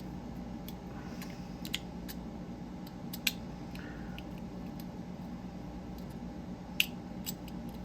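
Small parts of a dial fidget toy clicking and tapping as they are fitted together by hand: a few scattered light clicks, the sharpest about three seconds in and near the end, over a faint steady hum.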